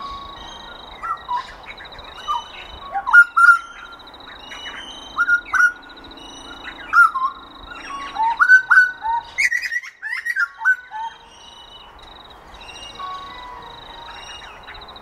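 Birds calling: a run of loud, short whistled notes that glide up and down, thinning out after about eleven seconds. Behind them runs a steady, high, finely pulsing tone.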